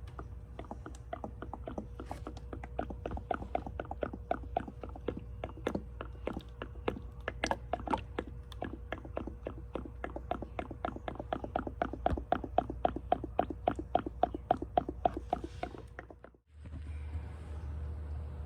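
Ratchet wrench clicking steadily, about four clicks a second, over a low hum. The clicking stops abruptly near the end, leaving only a steady low hum.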